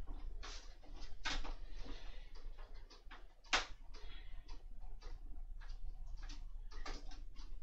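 Small screwdriver turning a small screw into the framework of a model bus: irregular light clicks and scrapes as the screw is worked in against stiff resistance, with one sharper click about three and a half seconds in.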